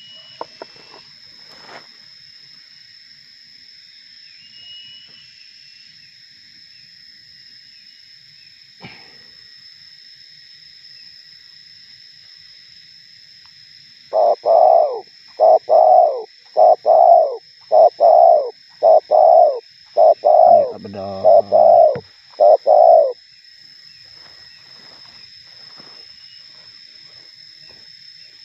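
Spotted dove cooing: a run of about ten loud coos over some nine seconds, starting about halfway through. Under it runs a steady high-pitched insect drone.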